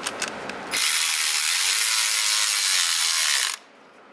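A few sharp ratchet clicks, then a cordless electric ratchet spins for about three seconds driving in a fastener, with a faint motor whine, and stops abruptly.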